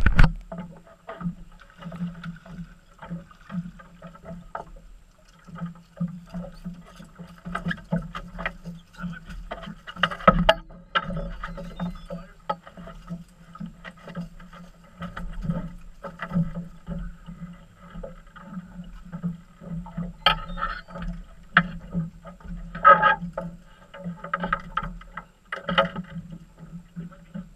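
Sounds aboard a small fishing boat on the water: a steady low hum with repeated knocks and clatter from gear being handled on deck.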